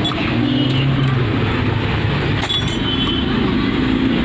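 Steady street traffic noise with engines running, and a sharp metallic clink about two and a half seconds in.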